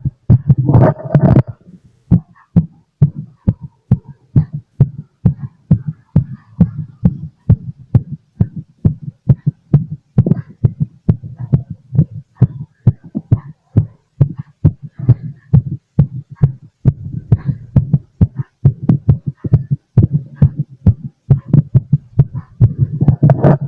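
Human heartbeat heard through a stethoscope: a steady run of fast, hard low thumps, racing after a lot of coffee. Brief scratchy noise comes about a second in and again near the end.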